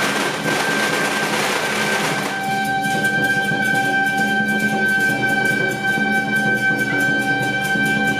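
Temple procession music: one long held note from a reedy wind instrument over fast, evenly repeated percussion strikes. A dense noisy wash fills the first two seconds.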